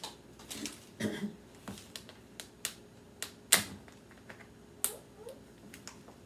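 Plastic whipped-topping tub being opened by hand: the lid and inner seal give a run of irregular sharp clicks and crackles, the loudest about three and a half seconds in.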